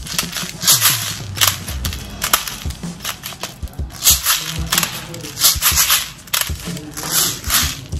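An airsoft gas blowback pistol magazine being loaded, heard as a series of short, sharp rattling and hissing bursts, irregular and several a second at times.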